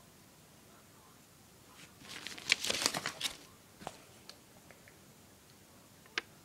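Paper pages of a Lego instruction booklet being handled and turned, a crackly rustle about two seconds in that lasts around a second, followed by a few light ticks and one sharp click near the end.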